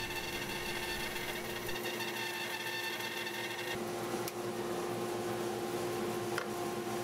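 Bandsaw running with a steady hum as its blade cuts along a curved molding; the tone shifts slightly about halfway through.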